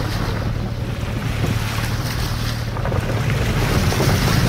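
Car engine running steadily, heard from inside the cabin, as the car drives slowly along a flooded dirt road, with tyres splashing and sloshing through deep puddles.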